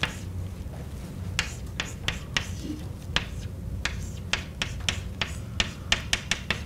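Chalk writing on a blackboard: irregular sharp taps and short scrapes as each stroke lands, coming faster near the end, over a steady low room hum.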